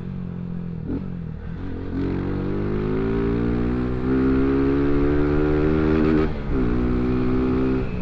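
Motorcycle engine and exhaust pulling up through the revs, which climb steadily for a few seconds. About six seconds in the pitch drops sharply at a gear change, and the engine then runs steadily. The bike is running on pure ethanol.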